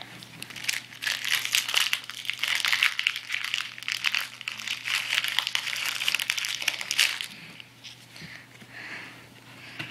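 Foil Pokémon booster pack wrapper crinkling as it is opened and handled, a dense run of crackles that stops about seven seconds in, leaving faint rustling.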